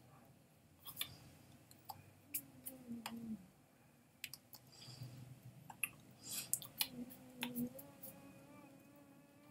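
Scattered soft clicks and taps of hands meeting and brushing clothing during signing, with two low wordless hums of a man's voice, a short one about two and a half seconds in and a longer one from about seven seconds in.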